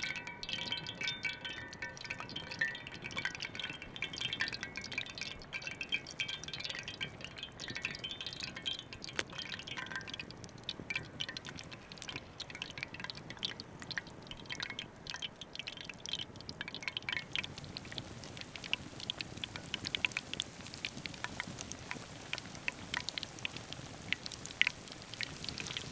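Tempura-battered ostrich heart deep-frying in hot oil in a cast-iron skillet: steady sizzling with many small crackles and pops, getting denser and hissier in the second half.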